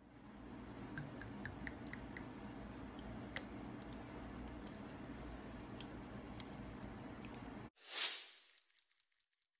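Sauce pouring over raw shrimp in a foil pan: soft wet squishing and dripping with scattered small clicks over a low steady hum. It cuts off abruptly near the end, and a single loud rushing burst follows and fades out in a few faint ticks.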